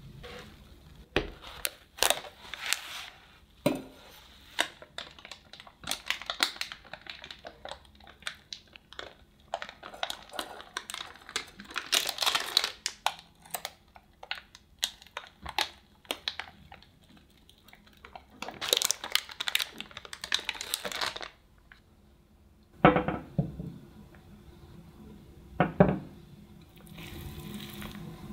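Baking parchment paper crinkling and tearing as it is peeled off the side of a baked sponge cake, in a long run of rustles and crackles. Two sharp knocks follow near the end.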